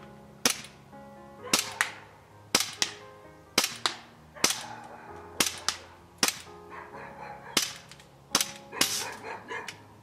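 Gas blowback airsoft pistol, fitted in the APS Action Combat Pistol SMG kit, firing single shots about once a second, with sharp pops and a smaller click after some shots. Near the end comes a quicker run of fainter pops.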